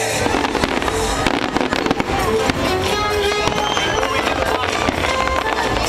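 Fireworks bursting in repeated bangs over the show's music soundtrack.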